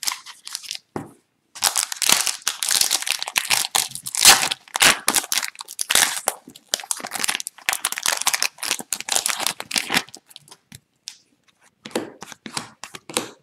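Foil wrapper of an Upper Deck hockey card pack being torn open and crinkled by hand, rustling in quick spurts for several seconds and dying down near the end.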